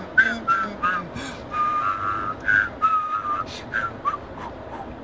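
A person whistling a tune: a run of short notes with two longer held ones, the first about one and a half seconds in and the second about three seconds in, each with a slight waver. The notes fade out near the end over a steady background rumble.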